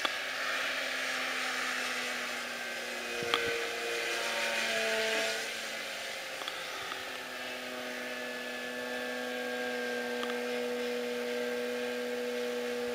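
Electric motor and propeller of a HobbyKing Yak 54 RC aerobatic plane in flight. It makes a steady whine that shifts in pitch a few times in the first half, then holds one pitch. A single sharp click comes a little over three seconds in.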